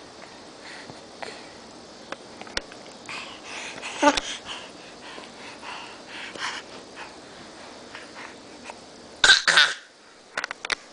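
Short non-speech vocal noises, cough-like and wheezy, in scattered bursts, with a loud high-pitched squeal about nine seconds in.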